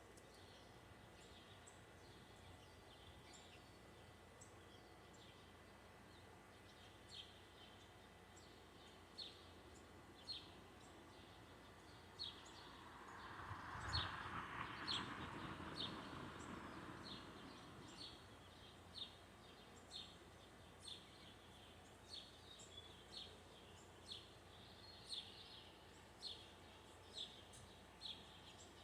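A bird calling faintly outdoors, short high chirps repeated about once a second. A soft rushing swell rises and fades in the middle.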